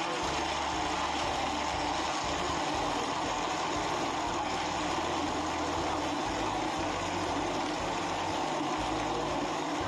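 Countertop electric blender motor running steadily at speed, whirring as it blends a red fruit frappe with no ice crunching left in it.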